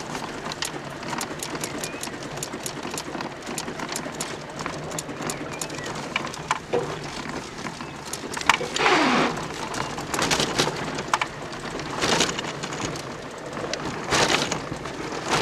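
Cabin noise of a Peugeot 306 rolling under tow with its engine dead after the cam belt broke: steady tyre and road noise with many small clicks and rattles, and a few louder surges in the second half.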